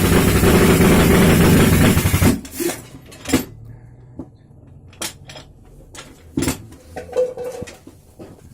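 Jackhammer running in a loud, dense hammering that stops abruptly about two seconds in, followed by scattered sharp knocks and clinks.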